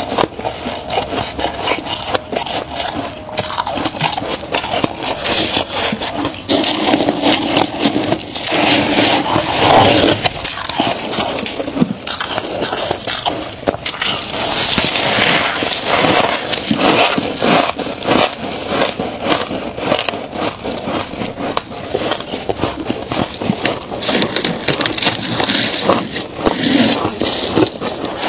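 Freezer frost scraped up with gloved hands and bitten into. A loud, dense run of crisp crackling and scraping.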